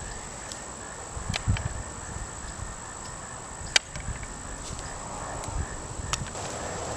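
Outdoor garden ambience of insects: a steady high-pitched buzz and a faint chirp repeating about three times a second. Three sharp clicks come through, the loudest about midway, over some low rumble.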